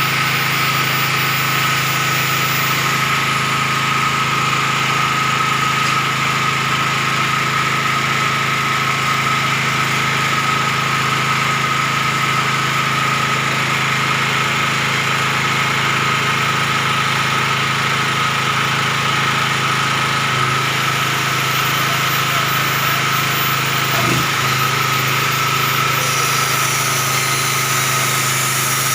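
A 7000 W portable generator's engine running steadily at constant speed, with an even, unchanging hum and a steady whine.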